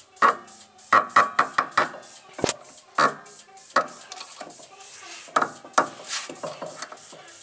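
A car's front suspension squeaking and clicking in short, irregular creaks as the steering is turned. The mechanic puts it down to a squeaking ball joint.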